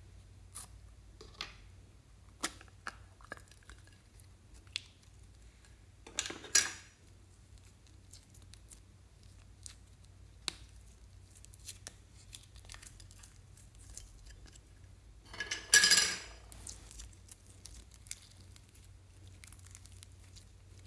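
Hands handling a plastic slime container and clear blue slime: scattered small clicks and taps, with two louder, longer noises about six and a half and sixteen seconds in.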